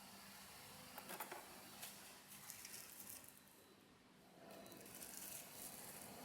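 Near silence with a few faint clicks and rustles, like light handling of objects.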